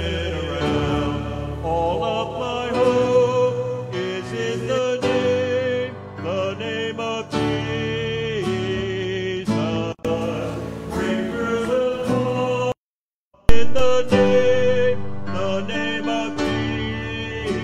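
Live church music: acoustic guitar with singing, slow held notes. About two-thirds of the way through, the sound drops out completely for under a second and comes back with a loud pop.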